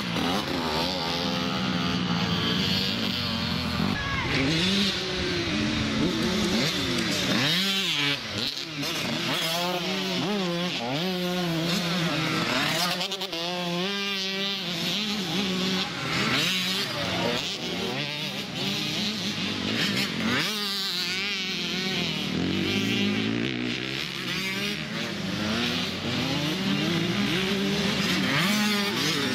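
Several small-capacity motocross bikes racing, their engines revving up and down over one another as the riders accelerate and shift, with no let-up.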